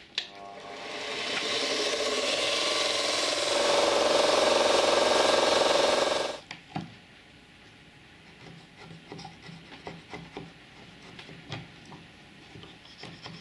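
Bench belt sander motor spinning up and running, getting louder as a small plywood ring is pressed against the belt, then cutting off abruptly a little past the middle. After that, quieter irregular scraping strokes of a hand file or rasp shaping the plywood ring.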